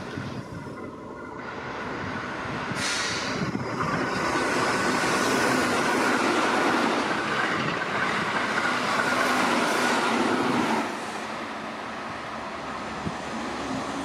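Keihan 8000 series express train running through the station at speed: a loud rush of wheels on rail with a steady high whine, building over the first few seconds and dropping away suddenly about eleven seconds in. Near the end, a rising motor whine begins from another train.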